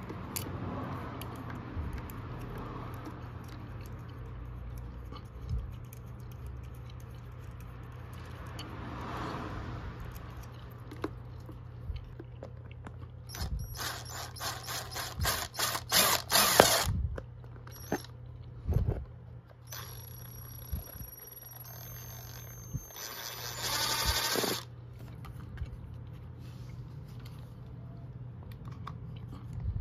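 Electric drill with a step drill bit boring holes through a thin plastic food container: a run of short stop-start bursts of motor and cutting about halfway through, then a steady motor whine that steps up in pitch once and ends in a longer, denser burst of drilling. Light handling knocks before and between.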